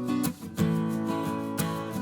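Background music: a strummed acoustic guitar, with chords changing in a steady rhythm and a brief break about a third of a second in.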